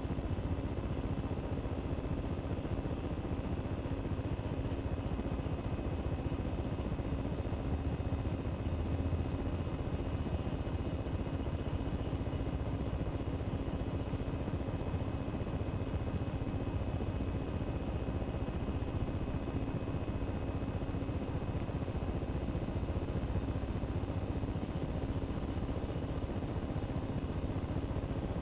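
A Macintosh IIci computer running as it boots, giving a steady whir and hum from its power-supply fan and spinning hard disk.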